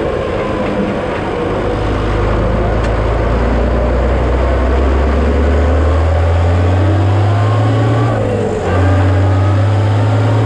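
Big farm tractor's engine running as it is driven, its pitch climbing steadily for several seconds, then dropping suddenly about eight and a half seconds in before settling again, with a faint rising whine above it.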